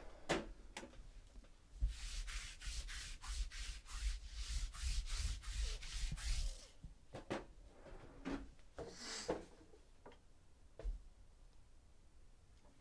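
Cards or packaging being handled out of view: a run of quick rubbing and sliding strokes, about three a second, for about four seconds, with a few light clicks and taps before and after.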